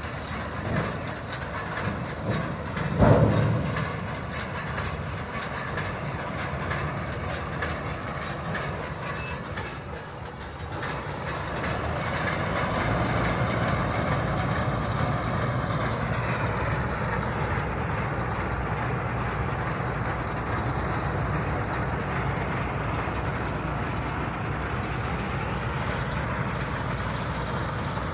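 Round baler running with a steady mechanical rattle, with a single loud knock about three seconds in; the noise dips briefly around ten seconds in, then runs on a little louder.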